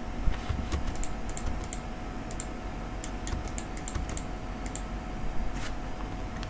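Computer keyboard typing: irregular key clicks scattered through the first five seconds, and one more about five and a half seconds in, over a faint steady hum.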